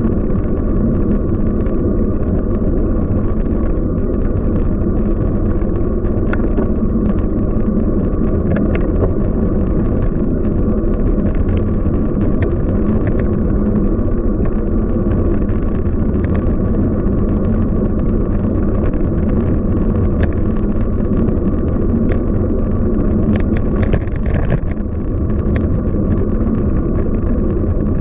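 Steady wind and road rumble of a bicycle ride, with scattered faint ticks over it.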